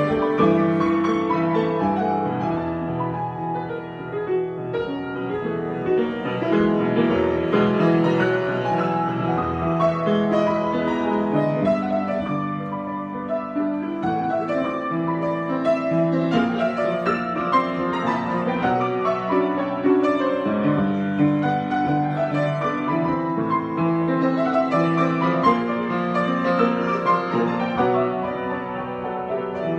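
Solo piano improvisation: dense, flowing chords and melody played continuously.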